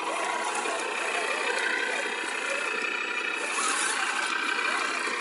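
Electric motor and geared drivetrain of a radio-controlled scale Land Rover Defender truck whining steadily as it crawls through thick mud.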